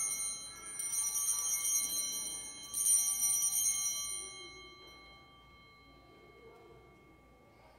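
Altar bells rung at the elevation of the consecrated host: a set of small bells shaken in rings about two seconds apart, each ring holding several clear high tones that fade away. The ringing dies out about five seconds in.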